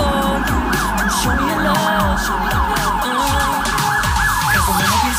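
Police siren in a fast yelp, its pitch sweeping up and down about three times a second, with pop music playing underneath.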